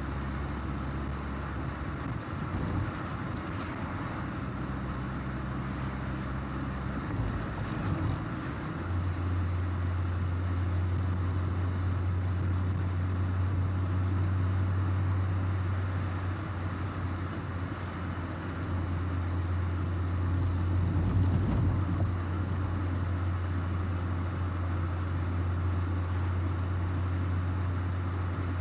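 1984 Volkswagen Golf Mk2 GL's carburetted four-cylinder engine pulling the car along at road speed, with tyre and road noise. Its note changes about a quarter of the way in, then holds steady and strong.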